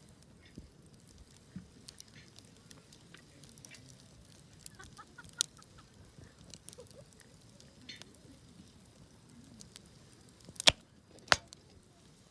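Wood campfire crackling with scattered small pops, then two sharp, loud pops near the end, about half a second apart.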